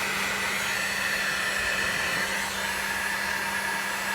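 Electric heat gun running steadily on high, blowing hot air to shrink heat-shrink crimp connectors: an even rush of air with a constant low hum and a faint high whine.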